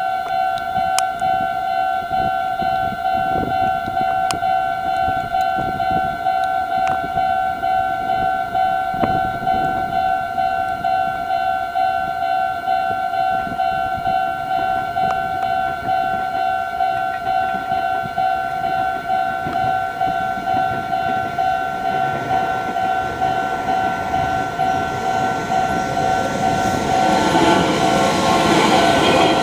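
Japanese level crossing's electronic warning bell ringing steadily and repeatedly. Over the last several seconds a Meitetsu 2200-series limited express approaches, its running noise growing louder under the bell.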